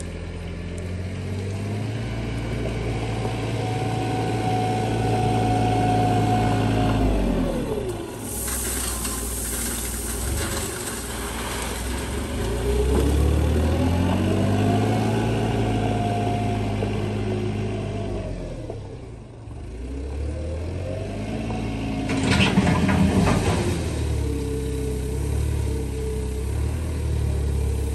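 Compact wheel loader's engine revving up and falling back in repeated cycles as it works. Bursts of gravel rattling and crashing come about eight seconds in and again a few seconds before the end.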